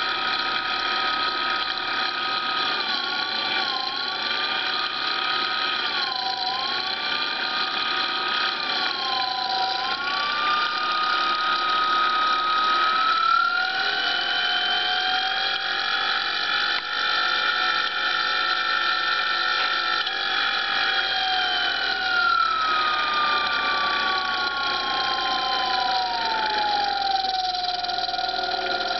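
Brushless motor driven by a breadboard Open-BLDC controller, running with a steady electric whine. The pitch dips briefly three times, rises and holds, then slides down over the last several seconds as the motor's speed changes.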